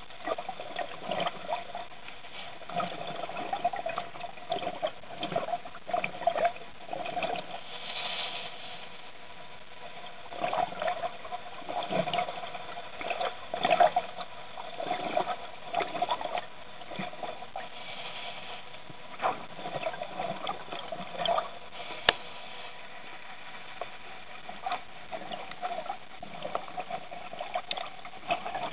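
Muffled underwater water sound: a steady hiss with irregular bubbling, crackling and popping, with no even rhythm.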